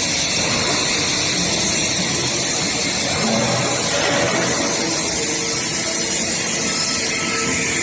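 Steady machinery noise from a steel pipe induction hardening and tempering line running, an even hiss and hum with a few faint steady tones.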